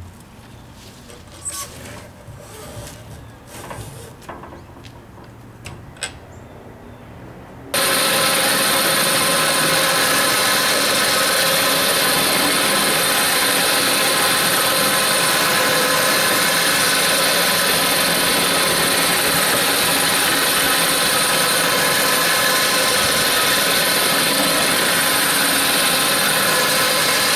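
A few faint knocks. Then, about eight seconds in, an electric winch motor switches on abruptly and runs steadily, hauling in cable with a loud, even whine.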